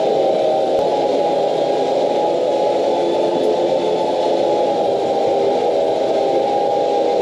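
Electric Warn winch motor running steadily under load as it pulls a log, a continuous mechanical whine over noise.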